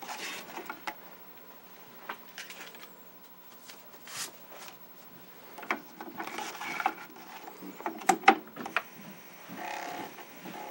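Scattered small clicks and handling knocks. Near the end comes a short buzzing rattle: the Commodore 1541-II floppy drive's head stepper knocking the read/write head against its track-zero stop during a bump test, run because the head stop position is out of adjustment.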